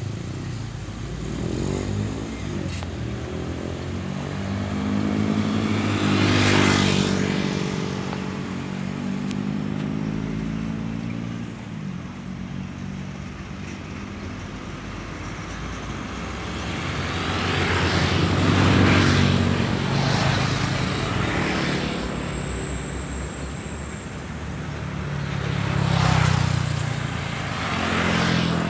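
Road traffic passing close, mainly diesel trucks with cars and motorbikes. Engines hum and pitch down as each vehicle goes by, with three louder passes.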